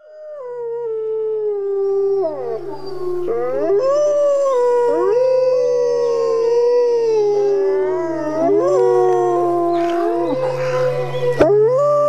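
Wolves howling in chorus: several long howls overlapping, each gliding up and down in pitch, fading in over the first couple of seconds. A sharp click sounds near the end.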